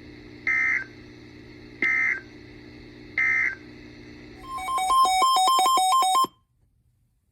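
Three short bursts of EAS digital data tones about a second apart, the SAME end-of-message code marking the close of the alert, over a faint steady hum. These are followed by a quick warbling beep that alternates rapidly between two pitches for under two seconds and cuts off sharply.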